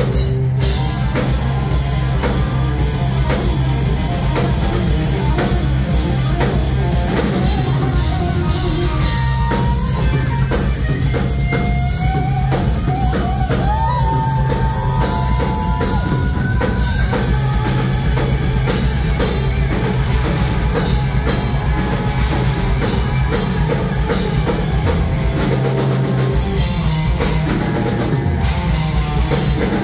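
Hard rock band playing live: drum kit, distorted electric guitars and bass, loud and dense. A high melodic line that bends in pitch rises over the band between about ten and seventeen seconds in.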